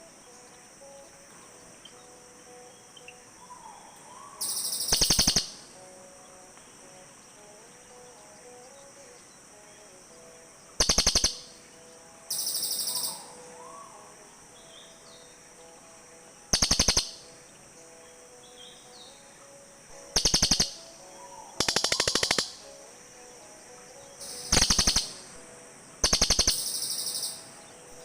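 Cililin birds calling back and forth. Short, loud, fast rattling trills come every few seconds, and several are paired with a higher, thinner call. A faint steady high hum sits beneath.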